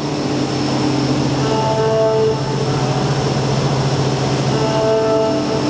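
Hyundai WIA CNC machining centre running, its spindle cutting a part under coolant spray: a steady machine hum, with a higher tone coming in twice, about a second and a half in and again near the end.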